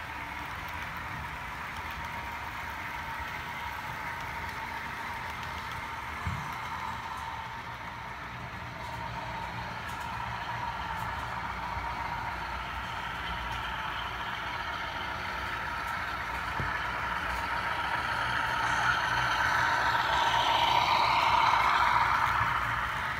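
HO scale model freight train running on the layout track: a steady rolling clatter of wheels on rail with a constant motor hum, growing louder from about three-quarters of the way through, peaking near the end, then dropping off.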